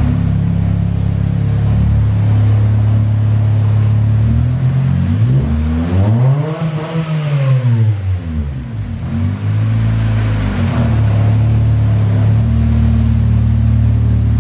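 Honda D-series four-cylinder engine of an Acura EL idling unevenly: its speed rises and falls once over about four seconds, then settles back to a steady idle. The owner puts the rough idle down to a vacuum leak at the back of the engine.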